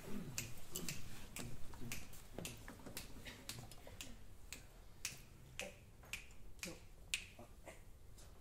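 Finger snaps keeping a steady beat, about two a second, setting the tempo before the band comes in.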